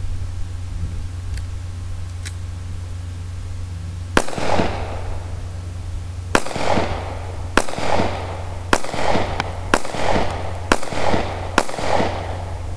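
Taurus PT709 Slim 9mm pistol fired seven times, the first shot about four seconds in, then roughly one shot a second, coming a little faster toward the end. Each sharp report is followed by a short rolling echo.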